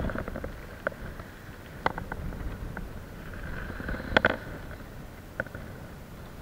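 Wind buffeting the microphone with a low rumble, broken by a handful of sharp clicks and knocks, the loudest a double knock about four seconds in.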